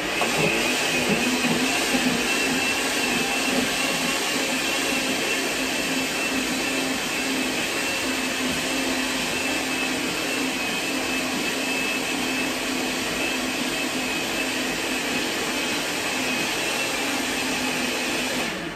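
Electric blender running steadily, grinding seeded guajillo chiles into a sauce, with a faint whine over the motor; it switches off at the very end.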